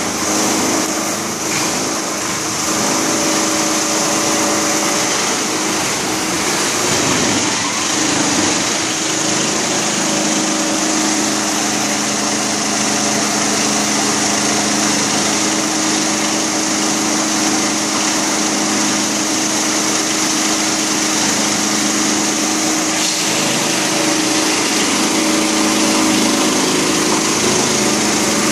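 Plastic crusher (granulator) running, its 37 kW electric motor and cutter rotor giving a loud, steady hum and whir.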